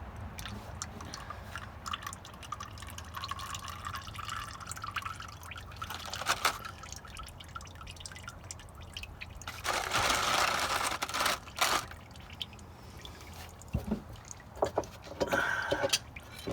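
Engine oil dripping and trickling into a drain pan. A louder noisy stretch comes about ten seconds in, with a few sharp knocks scattered through.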